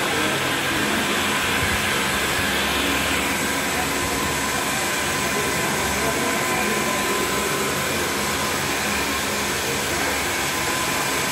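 Steady rushing, whirring noise with a faint high steady whine, unchanging throughout.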